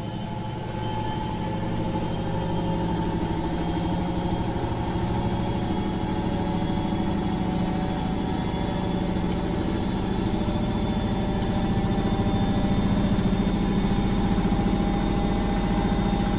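Washing machine running: a steady motor hum with several faint high whining tones held over it.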